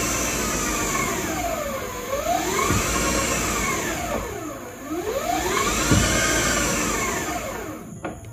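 Electric drive motor of a classic Mini EV conversion whining as it spins the unloaded front hub and brake disc on axle stands, the pitch rising and falling three times as throttle is applied and released. It fades away near the end.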